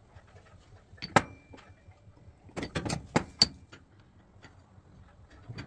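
Metal machine parts clinking and knocking as they are handled and fitted together, a taper-lock bushing going into a steel belt pulley: a sharp clink about a second in with a short metallic ring, then a quick run of knocks around three seconds in.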